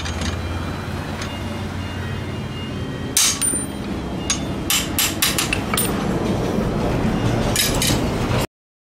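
Small hand hammer striking a steel billhook blade in sharp metallic blows: a single strike about three seconds in, a quick run of about five strikes past the middle, and two more near the end, over a steady low background rumble. The sound cuts off suddenly just before the end.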